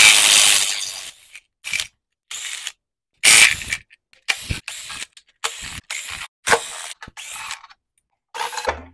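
Cordless ratchet spinning out the timing cover bolts on a Ford 4.6-liter two-valve V8, in about ten short bursts with pauses between them. The first burst is the longest and loudest.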